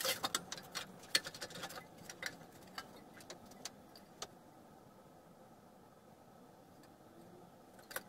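Light clicks and taps of an embossed metal sheet being handled and set in a bench sheet-metal bending brake, thick for the first four seconds or so, then dying down to a faint hiss, with a few more clicks near the end.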